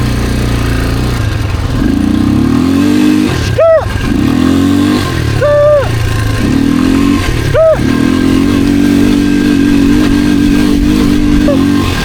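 ATV engine running, with repeated throttle blips that raise its pitch each time. Three short higher-pitched sounds, about two seconds apart, cut through the engine sound.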